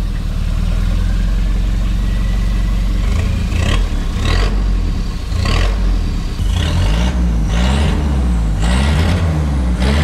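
Nissan Terrano's diesel engine running with its exhaust disconnected under the car, so it sounds straight through the open pipe. It idles steadily at first, and in the second half the revs rise and fall several times.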